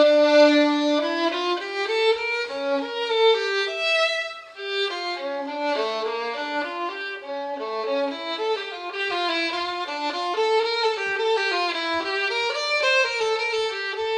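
Intro music: a violin playing a quick, continuous melody.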